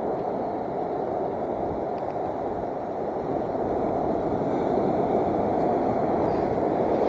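Steady rushing noise of wind and breaking surf on a beach, with wind on the microphone.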